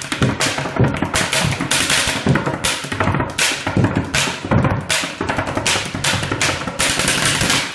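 Pen-tapping beat: ordinary pens drummed on a surface in a steady, fast rhythm of low thuds and sharp clicks, like a drum kit.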